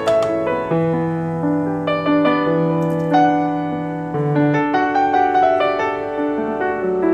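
Background piano music: a gentle melody of held notes over sustained bass notes.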